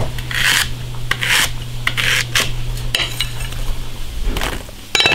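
Chinese cleaver slicing fresh ginger on a wooden stump chopping block: several short rasping strokes of the blade through the root and across the wood, roughly a second apart, with a steady low hum beneath that stops about four seconds in.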